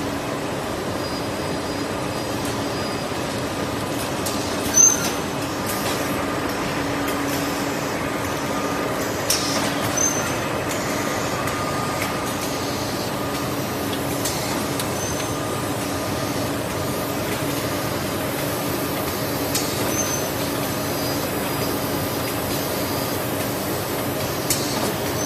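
Automatic kitchen towel roll packing line running: steady machine and conveyor noise with a low hum, broken by a few short sharp bursts, the loudest about five seconds in.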